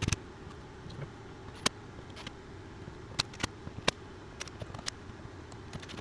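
Irregular sharp clicks and taps from hand work on a bus entrance door latch, about half a dozen over a few seconds, heard over a low steady hum.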